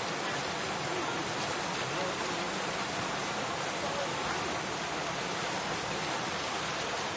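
Rushing, churning white water, a steady even hiss.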